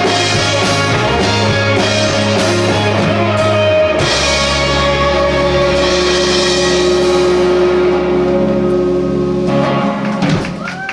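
Rock band playing live with electric guitar, bass and drum kit. About four seconds in they move to a long held final chord, which dies away near the end as the song finishes.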